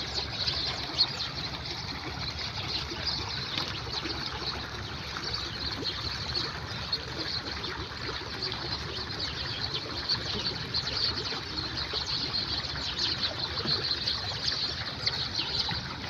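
Many small birds chirping and twittering together in a dense, unbroken chorus of short high notes over a steady background hiss.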